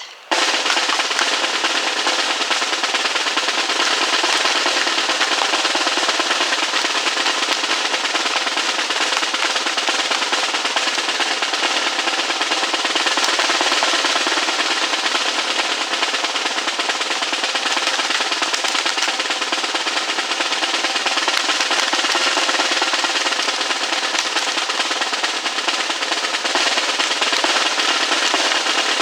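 Percussion music with a continuous snare drum roll, starting abruptly and going on steadily without a break.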